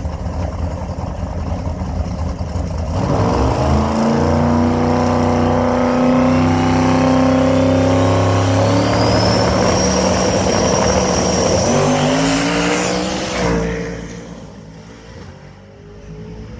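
Drag racing car's engine running at the starting line, then brought up to high revs about three seconds in and held there loud for about ten seconds, with a high whine rising in pitch. About thirteen seconds in it launches at full throttle and the sound quickly falls away as the car runs off down the track.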